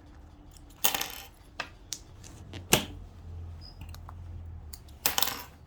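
Rustling of denim and a few sharp clicks as jeans and a zip are handled and set in place for sewing, with a faint low hum underneath.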